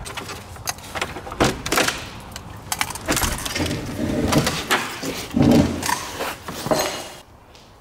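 An old wooden panel door with a brass knob being turned and pushed open: a run of knocks, rattles and scrapes, loudest about five and a half seconds in, stopping about seven seconds in.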